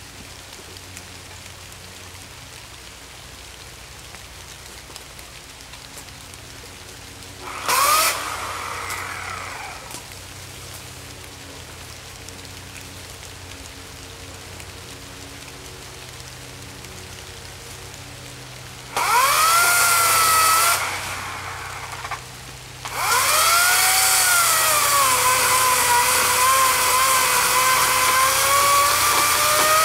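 Greenworks 18-inch 14.5-amp corded electric chainsaw: a short spin-up about 8 s in that winds down, another brief run around 19 s that coasts down, then from about 23 s a steady loud motor whine whose pitch sags as the chain loads in a cut and rises again near the end.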